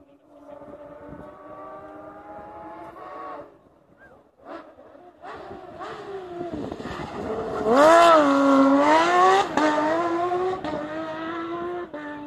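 Rally car engine running hard. It climbs steadily in pitch at first, then grows much louder as the car comes through and passes, loudest about eight seconds in, where the note dips and rises. It then steps through a couple of gear changes as the car pulls away.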